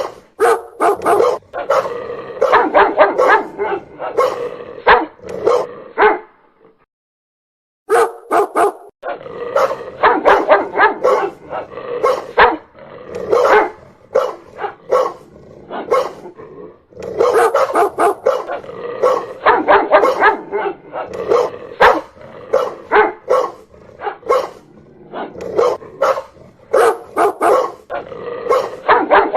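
Dog barking loudly, fast and repeatedly, with the barks breaking off into a second and a half of silence about six seconds in before resuming.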